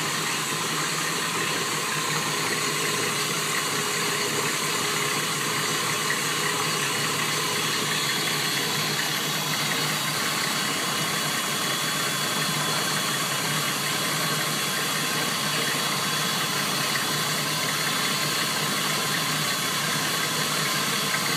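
4.3-litre MerCruiser MPI V6 marine engine idling steadily at closed throttle.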